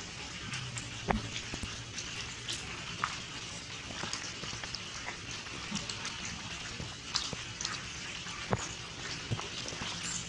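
Rain falling on shallow standing water: a steady hiss with many scattered, sharp drop splashes on the surface.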